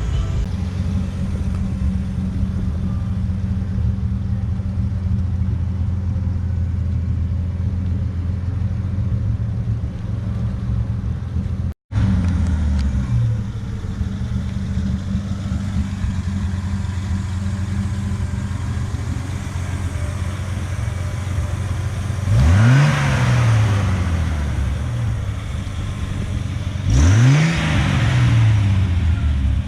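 Classic pickup truck's engine idling with a steady low rumble, then revved up and let fall back twice near the end, a few seconds apart. The sound drops out for an instant a little before halfway.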